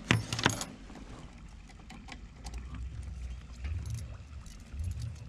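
A sailboat halyard and its hardware handled at the bow pulpit: a few sharp clicks and rustles near the start, then scattered faint ticks over a low rumble.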